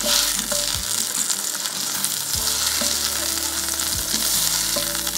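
Sockeye salmon burgers frying in olive oil in a hot cast iron skillet: a steady sizzle with fine crackling.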